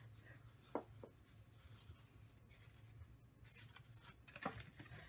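Near silence: faint room hum, with two brief soft taps, about a second in and again near the end.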